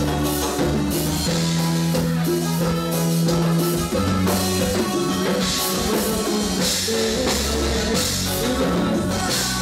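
Live band playing Latin dance music: drum kit, Roland Fantom-S88 keyboard and electric guitar over a steady beat.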